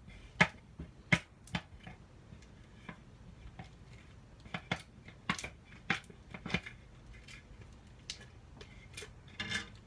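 Freshly activated slime being worked by hand in a bowl, giving irregular sharp sticky clicks and pops, with a short cluster of them near the end.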